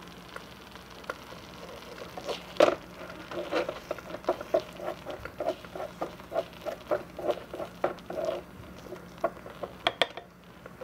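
A small wooden spoon stirring and scraping a thick tomato and sardine sauce in a miniature aluminium pan: a rhythmic run of wet scrapes, about three a second, starting about two seconds in. A few sharp clicks follow near the end.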